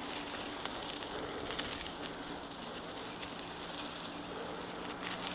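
Bicycle riding along a dirt woodland trail: steady tyre noise on the ground with scattered small clicks and rattles from the bike.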